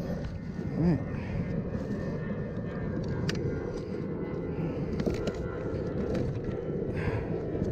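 Steady low wind rumble buffeting the microphone on open water, with a few light clicks and rustles from handling gear and a plastic bag.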